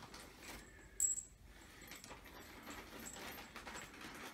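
A single light metallic clink about a second in, with a short high ring, followed by soft rustling and small clicks of hands working on couch assembly parts.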